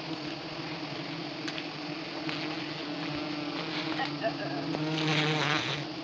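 A mass of wild honey bees buzzing around their exposed combs on a tree trunk: a steady, even drone.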